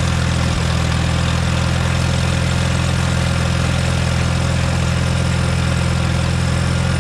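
International Harvester 240 tractor's four-cylinder gasoline engine idling steadily, with a new spark plug in the number one cylinder that had been misfiring; it now sounds to be firing on all cylinders.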